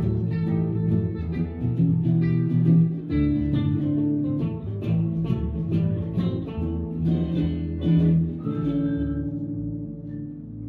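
A small live guitar band, with electric guitars and an electric bass guitar, playing a plucked, rhythmic tune. About two-thirds of the way in they hold a chord that rings and fades out.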